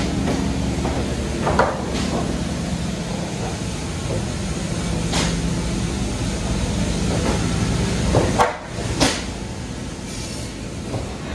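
Steady drone of mill machinery and chain conveyors running, with about five sharp knocks as peeled round wooden posts are stacked against one another; the loudest knocks fall about a second and a half in and around eight and nine seconds in.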